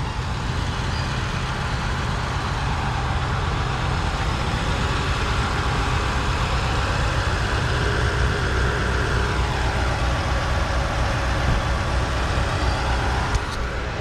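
Motor vehicle engines running nearby, a steady low rumble with a hiss over it that changes about nine and a half seconds in.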